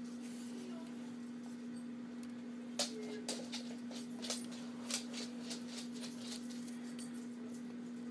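A steady low hum, with a handful of faint, sharp clicks and taps a few seconds in.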